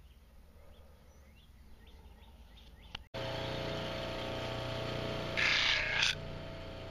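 Faint bird chirps, then, after a cut about three seconds in, a bench buffer motor running with a steady whine. About five and a half seconds in, a knife blade is pressed briefly against its Scotch-Brite-style abrasive wheel, giving a short harsh hiss.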